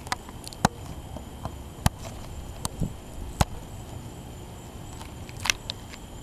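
Half a dozen sharp clicks and snaps at uneven intervals as the packaging of a small fountain firework is handled and pried open, with steady insect chirring behind.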